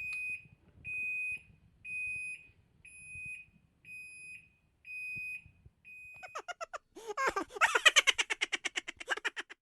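An electronic beeper sounds seven short, steady beeps at one pitch, about once a second. Then, for the last three seconds, a louder, fast buzzy rattle of rapid pulses follows.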